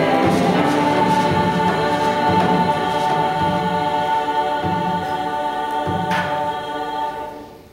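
Choir singing a long held chord over a few low hand-drum strokes, with one sharper drum stroke about six seconds in; the chord is released near the end.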